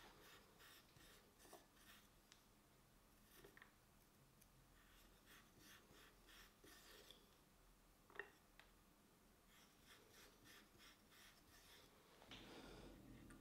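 Faint scraping and small clicks of a metal hole-cutter twisting through the clay wall of a teapot body, punching the strainer holes where the spout will attach. The strokes come in short repeated bursts, with one sharper click about eight seconds in.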